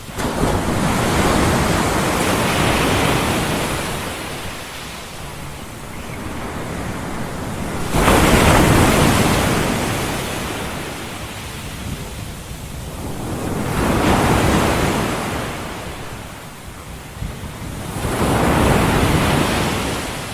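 Ocean surf: waves washing in and drawing back as a steady rush that swells four times, about five seconds apart. The swell about eight seconds in comes in most sharply and is the loudest.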